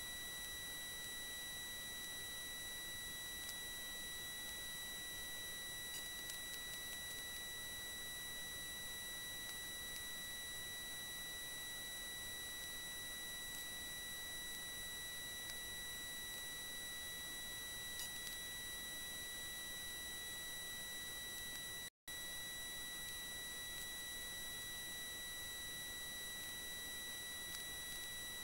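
A steady high-pitched electronic whine at one unchanging pitch, with fainter overtones above it, over a low hiss. It cuts out for an instant about 22 seconds in.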